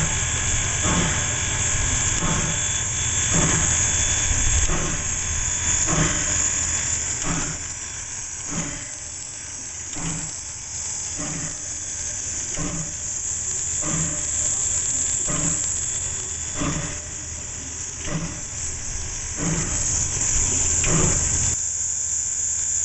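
Viscose #6 steam locomotive standing with steam hissing steadily and a regular beat about every second and a half from its working machinery.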